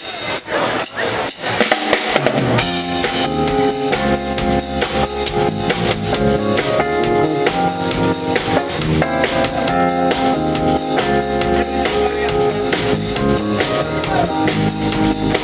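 Live band playing a song's instrumental intro: the drum kit starts with a few separate hits, and about two and a half seconds in the bass and other instruments join in a steady beat.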